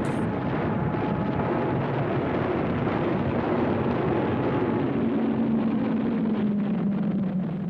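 Dense, steady rumble of a battle soundtrack with the drone of piston-engined aircraft; an engine tone grows stronger about five seconds in.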